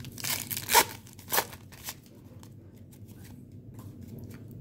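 A 1990 Pro Set football card pack's paper wrapper being torn open: several sharp rips and crinkles in the first two seconds, the loudest just under a second in, then faint ticks as the cards are handled.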